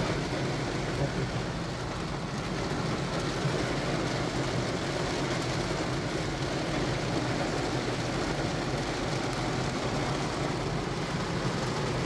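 Heavy rain drumming steadily on a car's roof and windshield, heard from inside the cabin, over a low steady hum from the running car.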